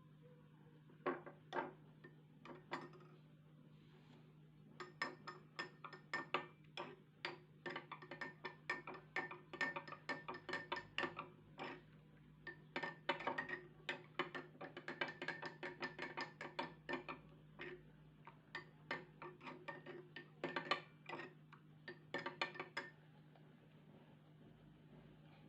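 A utensil striking a kitchen vessel over and over, each strike a sharp clink that rings at the same pitch. The strikes come in quick runs of about three to four a second, with brief pauses between runs, and stop a couple of seconds before the end.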